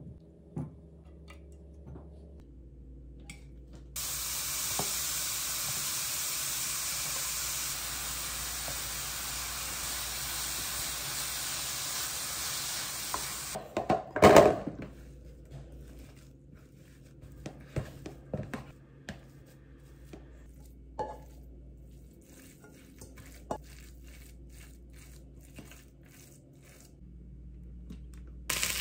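Potato pieces sizzling in a frying pan, a steady hiss that starts and stops abruptly. Halfway through comes a loud clatter as potatoes are tipped from a glass bowl into a plastic container, followed by scattered light knocks of kitchenware being handled.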